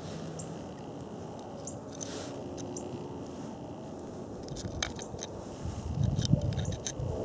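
An arrow being picked up off gravelly dirt by hand. About four and a half seconds in there is a run of small crackles and scrapes, with a few dull thumps near the end, over a steady low background rumble.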